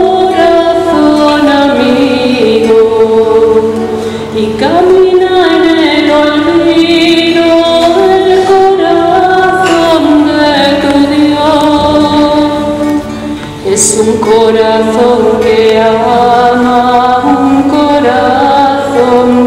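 A woman singing a slow hymn solo, accompanying herself on acoustic guitar, with two short breaks between phrases.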